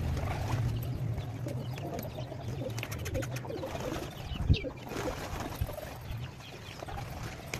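A flock of domestic pigeons cooing steadily. A pigeon's wings flutter a few seconds in, and there is one short sharp knock about halfway through.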